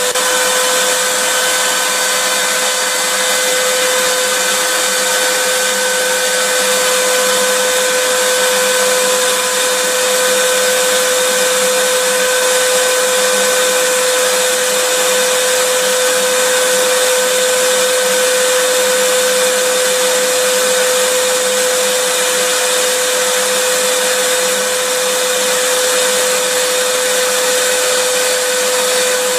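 Vacuum cleaner running steadily and loudly: an even rushing hiss with a constant mid-pitched whine, unchanging throughout.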